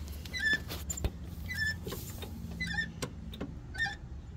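Clutch release linkage on an old truck squeaking about once a second as the clutch pedal is pumped up and down, its fork pivot pin badly worn and sloppy. A steady low hum underneath, and a few faint clicks.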